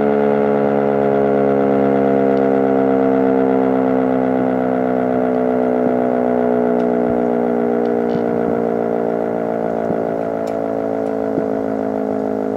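Sentry 3V8 outdoor warning siren winding down after a short blast, its chord of tones sliding slowly lower in pitch and fading a little.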